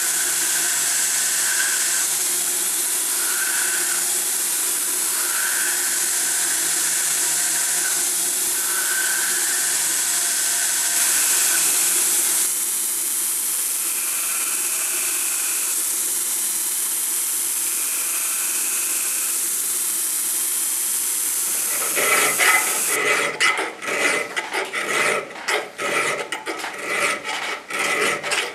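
Belt grinder running, its abrasive belt grinding the steel hammer head with a steady hiss. About three-quarters of the way through it gives way to a round file rasping back and forth through the hammer's handle eye, in quick uneven strokes.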